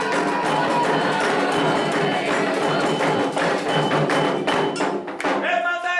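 Candomblé ritual music: atabaque hand drums struck in a fast, dense rhythm with a ringing metal bell and singing voices. About five and a half seconds in, the drums stop and a lone voice sings on.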